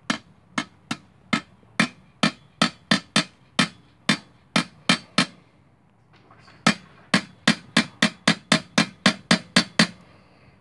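Repeated ringing metal-on-metal taps on the side of a steel 5-gallon bucket rocket stove, knocking loose the packed sawdust fuel inside. There are about a dozen taps at roughly two a second, a brief pause near the middle, then a quicker run of about fifteen.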